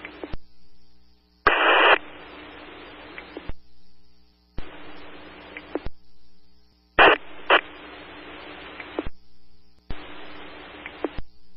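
Fire radio channel on a scanner feed, keyed up without speech: stretches of open-squelch static hiss that cut off into short silences, with sharp clicks as transmissions open and close. A louder burst of static comes about a second and a half in, and two clicks come close together about seven seconds in.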